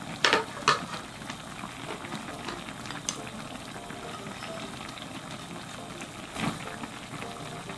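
Beef and mushroom stew (beoseot-jjigae) bubbling at a boil in a pan, with a few short clicks, two near the start and one near the end, as chopped green onion and chilies are tipped in from a wooden spatula.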